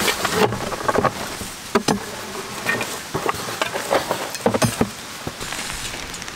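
Dry leaf litter and dirt crunching and rustling close up as a cardboard concrete form tube is set into a hole and handled, in irregular crackles.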